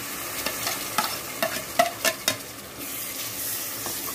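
Onion-and-spice masala frying with a steady sizzle in a metal pot as yogurt and tomatoes are added and stirred in, with a metal slotted spatula clicking and scraping against the pot several times in the first half.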